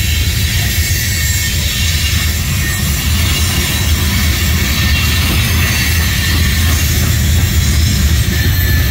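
Freight train of covered hopper cars rolling steadily past: a loud low rumble of steel wheels on rail, with a high hiss and a faint thin squeal above it.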